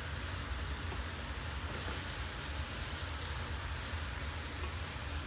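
Chopped okra frying in hot oil in an aluminium pot, a steady sizzling hiss as it is stirred with a wooden spoon.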